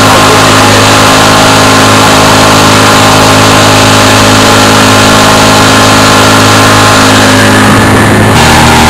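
Small boat's outboard motor running hard at speed, heard loud and close from on board, with a steady rush of wind and water over it. The engine note changes slightly near the end.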